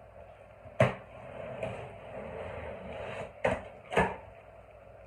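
Large cardboard box being opened and handled: a sharp knock about a second in, rustling of cardboard and packing, then two more knocks close together near the end.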